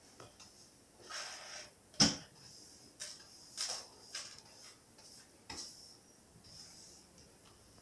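Stiff-bristled hand brush sweeping small fragments of broken glass across a ceramic tile floor into a plastic dustpan, in short scratchy strokes. There is a sharp knock about two seconds in and another about five and a half seconds in.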